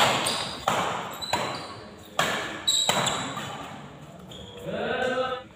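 Badminton rackets striking the shuttlecock in a fast doubles rally, about five sharp hits under a second apart, each followed by a short echo in the hall. Near the end a voice calls out.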